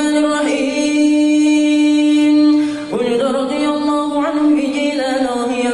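A man's voice chanting in Arabic, holding one long steady note for about two seconds, then going on in a wavering, ornamented melody.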